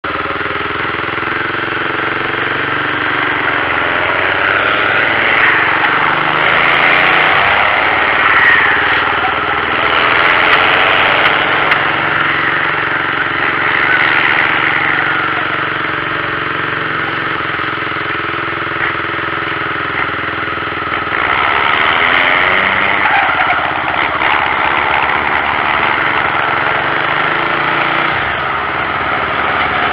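Mercedes-Benz 1113 truck's diesel engine running loud, its note swelling and easing every few seconds.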